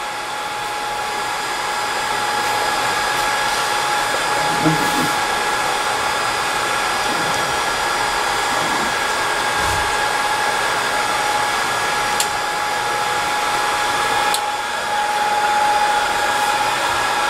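ZC-C2 BGA rework station's cooling blowers running steadily: an even rush of air with a steady tone through it, a little louder after the first couple of seconds. The heaters have cut off and the blowers are cooling the motherboard after dry re-soldering of the BGA chip.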